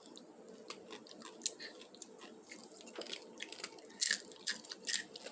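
Close-up crunching and chewing of wavy potato chips (Ruffles Jamón), a run of short irregular crackles with a louder cluster of crunches about four seconds in.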